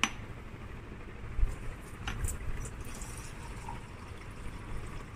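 Tap water running from a lab sink tap into a glass beaker, with a sharp click at the start and another about two seconds in.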